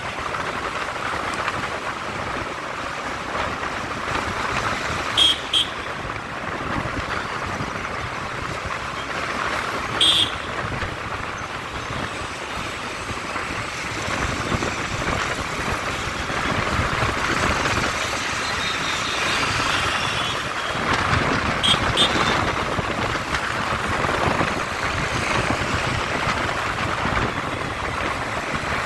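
Steady road traffic noise, with short vehicle horn beeps: two quick beeps about five seconds in, one near ten seconds, and two more a little after twenty seconds.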